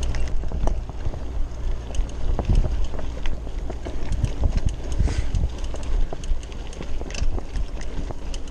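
Mountain bike riding over a rough dirt trail: wind buffeting the bike-mounted camera's microphone, with frequent rattles and knocks from the bike jolting over bumps.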